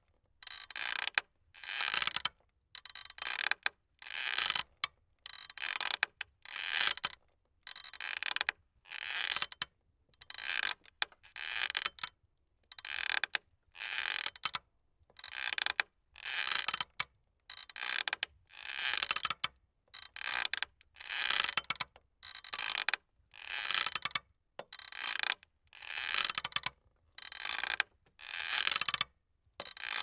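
Metal squeaking of a face-to-face swing, one squeak on each swing back and forth, about one a second with short gaps between.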